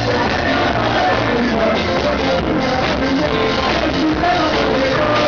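Live rock band playing loud in a club, with drums, bass and a male lead singer holding sung notes.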